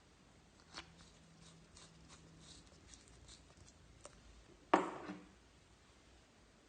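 Hands working slime: a scatter of small clicks and crackles, then one louder sharp squelch or pop a little under five seconds in that dies away within half a second.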